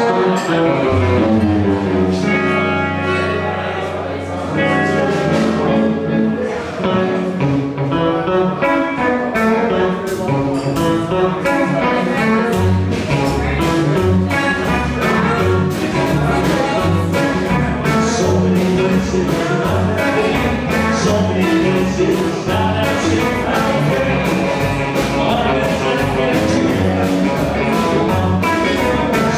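A live blues band plays with two electric guitars, an upright double bass and a drum kit, and a harmonica is cupped against a vocal microphone. The drums and bass settle into a steady, driving beat from about ten seconds in.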